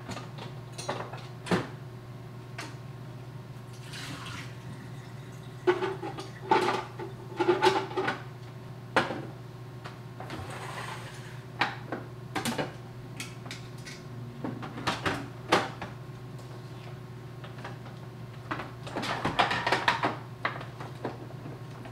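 Scattered clicks, knocks and plastic clatter of a single-serve coffee maker being lifted, handled and moved on a kitchen counter, with clusters of handling noise about six to eight seconds in and again near the end, over a steady low hum.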